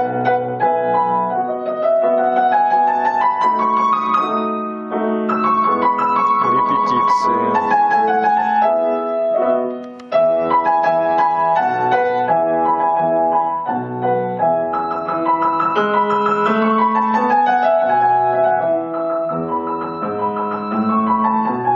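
Grand piano being played in rehearsal: a continuous flowing piece of chords and rising runs, broken off briefly and resumed about ten seconds in.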